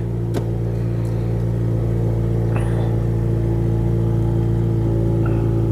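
Honda Civic Si's 2.0-litre four-cylinder engine idling steadily after a cold start, heard from inside the cabin, with stiffer aftermarket torque mounts fitted.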